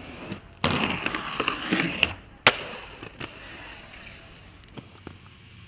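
Inline skates grinding: a rough scrape starting suddenly about half a second in and lasting about a second and a half, then a single sharp clack of a landing.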